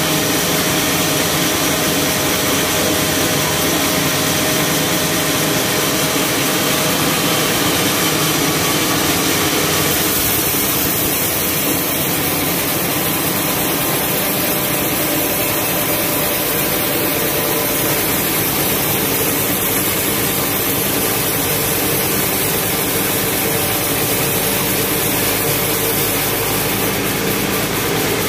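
Band sawmill running steadily with its engine, a loud continuous machine sound; its tone shifts about ten seconds in.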